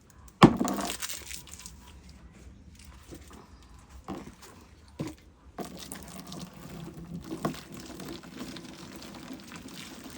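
A loud knock about half a second in and a few lighter knocks, then, a little over halfway through, hot water starts running from a tap into the soaking ropes and powder.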